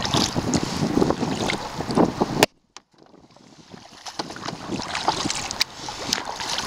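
Wind buffeting the microphone while a kayak paddle dips and splashes in the river, with scattered small clicks and drips. About two and a half seconds in, a sharp click cuts the sound off for about half a second, and it then slowly fades back in.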